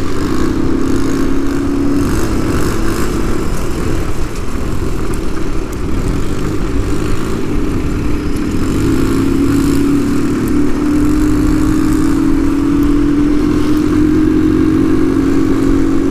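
Moped engine running steadily while being ridden, a constant drone that climbs slowly in pitch from about halfway through, with wind rushing over the helmet-mounted microphone.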